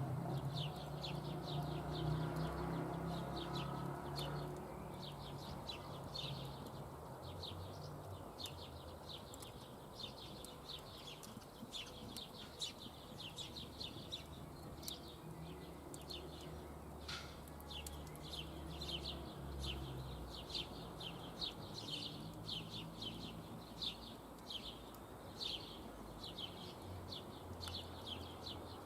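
A bird chirping over and over, short high calls about twice a second. A low steady hum fades out in the first few seconds.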